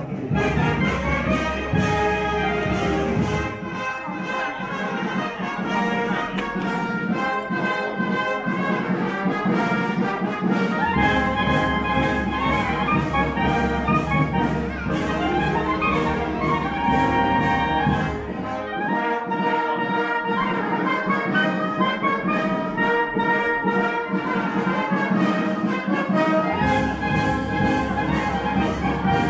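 Brass band playing processional music to a steady beat. The deep bass notes drop out twice for several seconds before coming back in.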